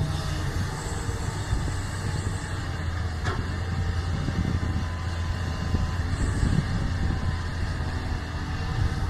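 Diesel engine of a Doosan hydraulic excavator running steadily at work, with a single sharp knock about three seconds in.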